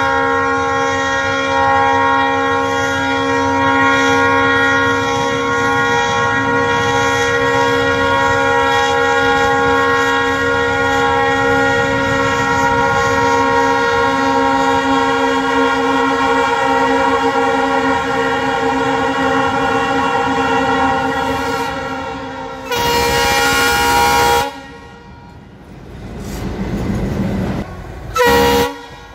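WDG-3A diesel locomotive horns sounding one long, steady, multi-tone blast for about twenty seconds, followed by a shorter loud blast. After that a locomotive rumbles closer over the track, and near the end there is one brief horn toot.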